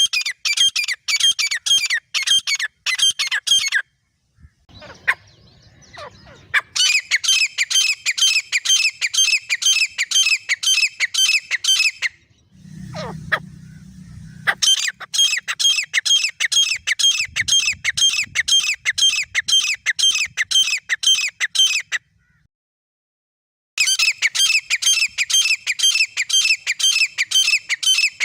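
Grey francolin pair calling: long runs of rapid, shrill, repeated notes, several a second, broken by three short pauses. A faint low rumble fills the first two pauses.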